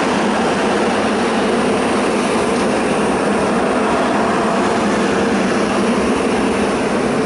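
Penang Hill funicular car running on its rails: a steady, even rushing noise with no distinct tones or knocks.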